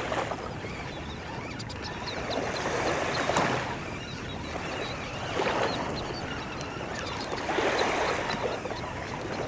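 Small surf waves washing in on the beach, the rush of water swelling and fading every two seconds or so.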